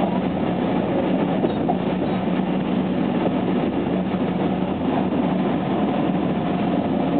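Running sound of a JR West 287 series electric multiple unit under way, heard inside the car: a steady rumble of the wheels on the rails with a constant low hum from the traction equipment, which uses a Toyo IGBT VVVF inverter.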